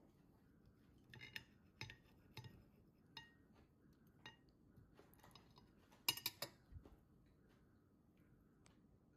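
Metal knife and fork clinking and scraping against a ceramic plate while cutting sausages: a scattering of light clinks, then a louder quick cluster of clinks about six seconds in.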